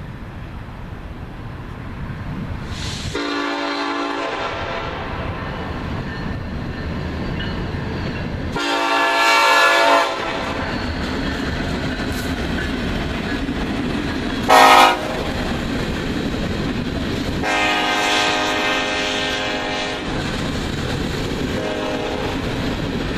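Lead BNSF SD70ACE diesel locomotive's multi-chime air horn sounding two long blasts, a short one and a final long one, the grade-crossing warning pattern, with the short blast the loudest. Under it, the steady rumble of the passing locomotives and loaded coal cars rolling over the rails, growing louder as the train comes by.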